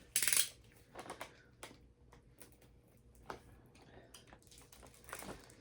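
Faint handling noises: a short rustle just after the start, then a few scattered light clicks and taps, and another brief rustle near the end.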